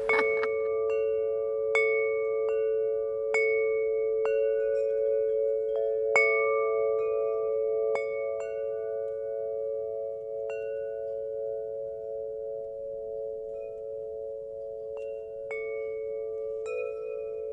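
Wind chimes ringing: irregular strikes of higher tones about once a second over three low tones that hang on and waver throughout.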